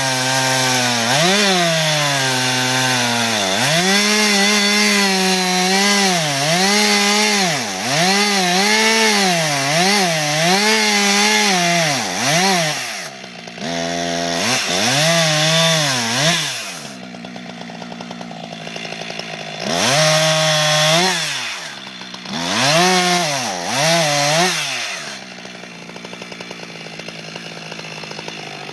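Chainsaw cutting into a tree trunk, its engine pitch repeatedly sagging and climbing back as the chain loads in the wood. About 17 seconds in it drops to idle, revs up briefly twice, then idles.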